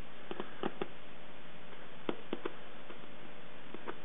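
Light metallic clicks of a hand nut driver's socket against the hex heads of sheet metal screws set in a rubber shoe sole, in three small groups of two to four clicks.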